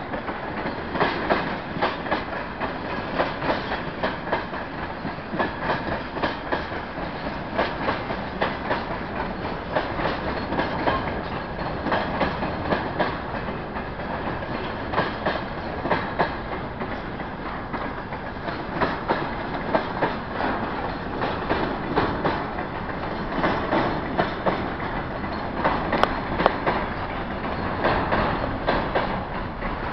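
Freight train wagons rolling past: a steady rumble of steel wheels with a continuous run of sharp clicks as the wheels cross the rail joints.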